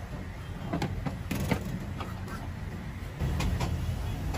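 Street ambience: a steady low rumble of traffic that grows louder about three seconds in, with a few sharp clinks and knocks of plates against a steel serving tray.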